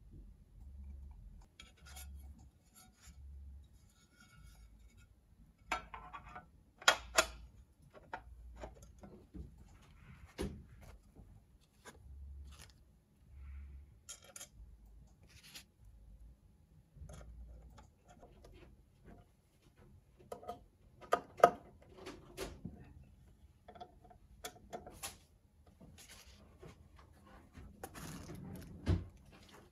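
Scattered small clicks, taps and rubbing from metal and plastic parts of a QHY filter wheel being handled: filters set into the carousel and the wheel's cover fitted on. The sharpest knocks come about seven seconds in and again near twenty-one seconds.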